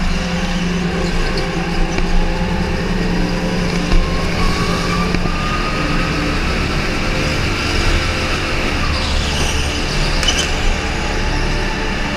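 Go-kart engine running at racing speed, heard from on board the kart as a steady drone.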